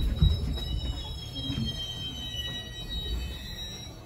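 JR West 207 series commuter train heard from inside the car as it slows, a low running rumble fading away under thin, high, steady squeals from the wheels and brakes. It is the train drawing to a stop.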